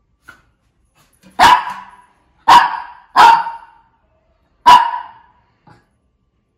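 Shih Tzu barking: four short, loud barks, the middle two close together.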